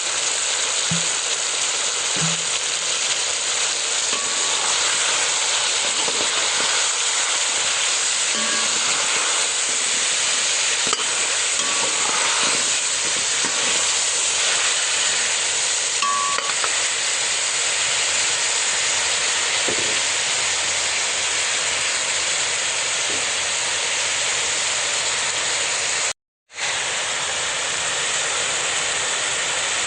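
Food sizzling steadily in a hot pan or pot, with occasional light clicks and clinks of a utensil stirring. The sound cuts out for an instant near the end.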